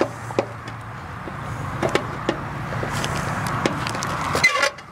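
Hand tin snips cutting aluminum J-wrap trim: a handful of sharp, irregular snips and metal clicks over a steady hiss.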